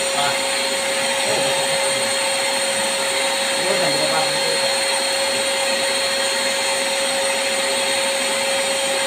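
Vacuum cleaner running steadily with a constant whine, its hose drawn on the clogged drain of a split-type air conditioner's indoor unit to suck out the blockage.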